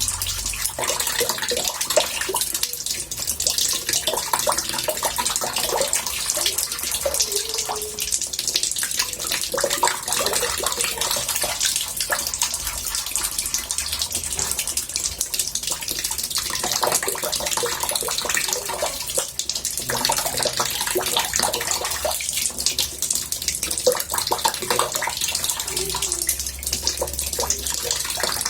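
Water running into a bathtub: a steady, murmuring splash with a fine crackling hiss, even throughout.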